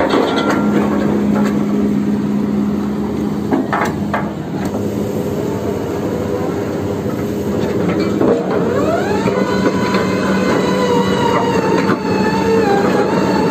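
Sany SR150C hydraulic rotary drilling rig running under load as its kelly bar drives a steel casing down into the mud: a steady engine drone with a few knocks around four seconds in. About eight seconds in, a metallic whine rises and holds, wavering near the end.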